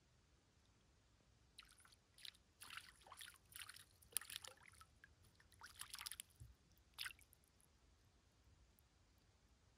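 A small hooked fish splashing and thrashing at the water's surface as it is drawn in on a float rod: a run of short splashes over about five seconds, the loudest about four seconds in, dying away about seven seconds in.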